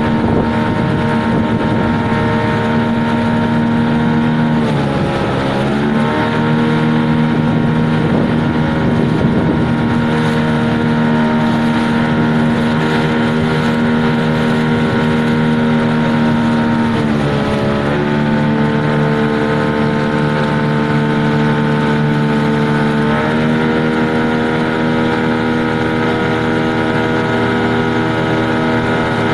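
Engine of a small river boat running steadily under way. Its speed dips briefly and recovers about five seconds in and again about seventeen seconds in, then picks up a little near twenty-three seconds.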